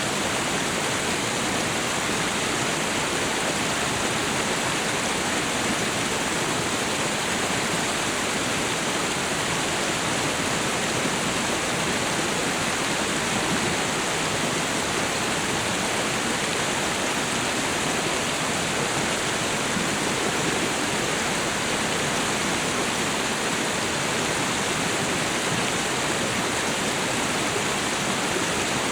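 Waterfall and river water rushing, a steady, unbroken roar of falling and flowing water.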